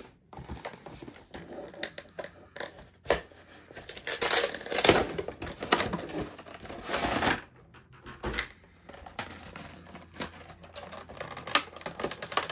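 A Pokémon card collection box being opened by hand: irregular rustling, scraping and tearing of its packaging, with a few louder bursts and clicks.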